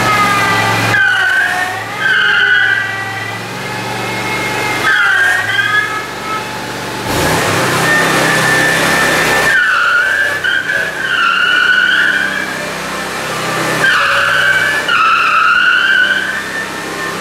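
Home-built six-wheeled mini locomotive chassis on turf tyres driving on a smooth concrete floor, its tyres squealing as they scrub. The squeals come in four bursts that bend up and down in pitch, over its engine running steadily.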